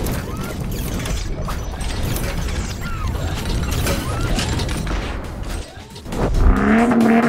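Rapid mechanical clicking and ratcheting, dropping off briefly about six seconds in, then a short pitched tone near the end.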